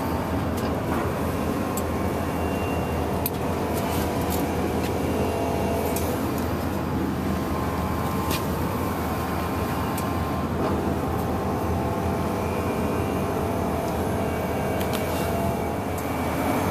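A steady mechanical drone with several held tones, at an even level throughout, with a few sharp clicks or knocks: about three seconds in, around six and eight seconds, and near the end.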